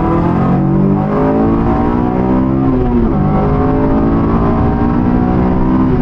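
2008 Honda S2000's 2.2-litre four-cylinder engine, fitted with an aFe Takeda intake, pulling under acceleration, heard from inside the cabin. Its pitch climbs, dips briefly about halfway through as at a gear change, then climbs steadily again.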